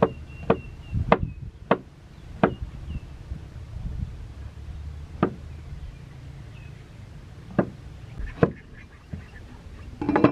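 A knife chopping on a wooden board in single strokes at irregular intervals, a quick run of chops in the first few seconds and then sparser ones. Faint high chirps sound in the first few seconds.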